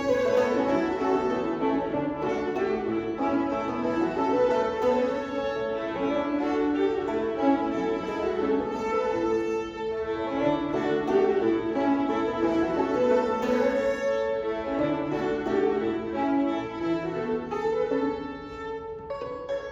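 Two fiddles and a banjo playing an old-time fiddle tune live, the bowed fiddle melody on top of the banjo's plucked notes. It eases off a little in the last couple of seconds.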